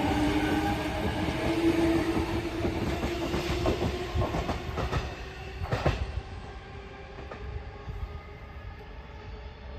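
E233 series 8000 electric commuter train pulling away: a steady motor whine over wheel rumble, a run of wheel clacks over rail joints, then the train's sound fading as it leaves.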